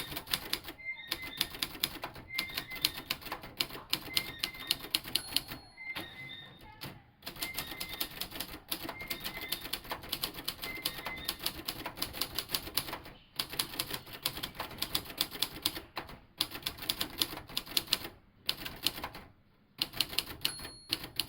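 Royal TA 240 typewriter being typed on: rapid runs of sharp key strikes, several a second, broken by a few short pauses.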